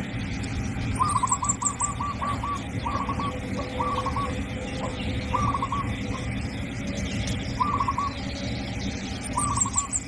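A bird calling: a quick run of short notes about a second in, then short two- or three-note calls every second or two, over a steady low hum.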